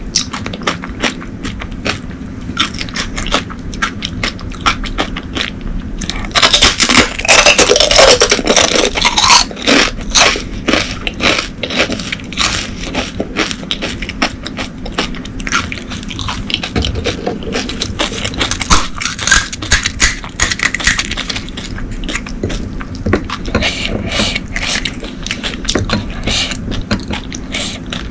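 Close-miked chewing of pani puri: crisp shells crunching amid wet, crackly mouth sounds, loudest and densest for a few seconds about a quarter of the way in.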